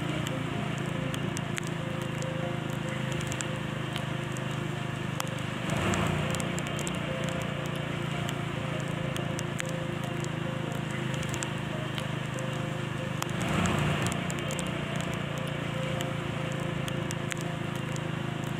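Vehicle driving in heavy rain, heard from inside: steady engine and tyre noise on the wet road with a constant crackle of raindrops hitting the glass and body. The noise swells briefly twice, about six and fourteen seconds in.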